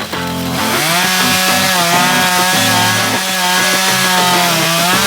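Gas chainsaw coming up to speed about half a second in, then running hard in a cut, its pitch wavering as it works into the wood.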